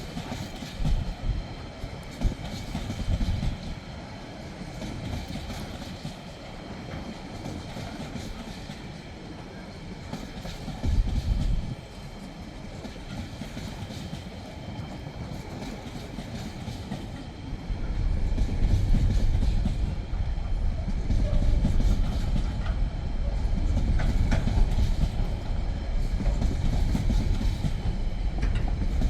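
TasRail freight train passing close by, its wheels rumbling and clicking over the rails, getting louder and heavier about two-thirds of the way through.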